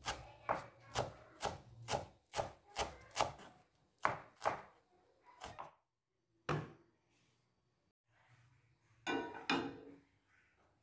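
Chef's knife chopping fresh coriander on a wooden cutting board: about two crisp strokes a second, thinning out after about four and a half seconds into a few single cuts. A short clatter of knocks follows about nine seconds in.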